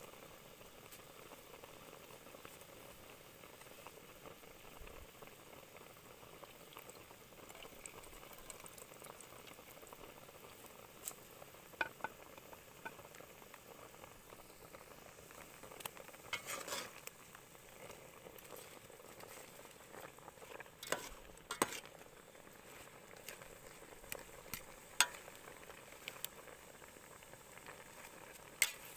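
A metal pot of water at a rolling boil over a portable gas stove, bubbling with a steady faint hiss. In the second half come scattered sharp clicks and knocks, the loudest sounds here.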